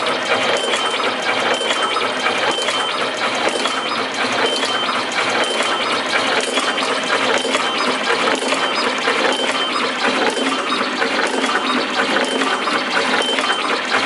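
TM S02 automatic wire cutting, stripping and crimping machine running, a rapid, continuous mechanical clicking and clattering with a steady high whine.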